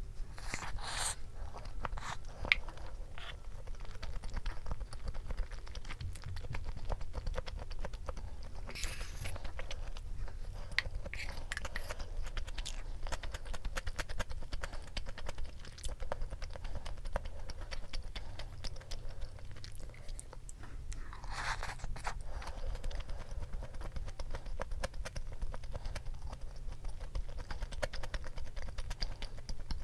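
Close-miked mouth sounds of chewing soy-marinated salmon and rice, with many small wet clicks. A few brief scrapes of a spoon in the bowl break in about a second in, around nine seconds in and around twenty-one seconds in.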